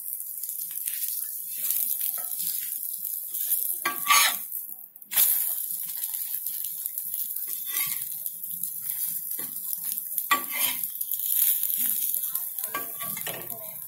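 A steel spatula scraping and clinking on a flat griddle while an egg omelette with bread slices sizzles. Sharper metallic clinks come about four seconds in and again near ten seconds.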